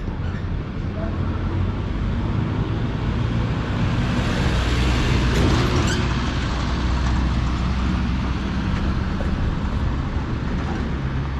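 Street traffic: a motor vehicle's engine hums steadily, growing louder toward the middle and easing off slightly afterwards.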